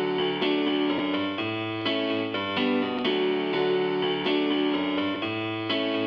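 Background music played on a keyboard, held notes and chords changing about twice a second.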